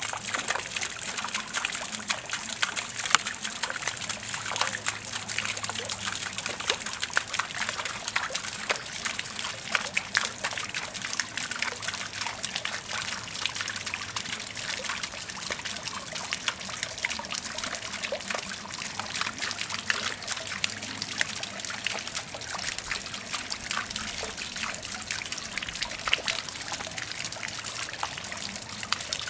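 Garden fountain water pouring and trickling into a pond: a steady splashing patter of many small drops and thin streams.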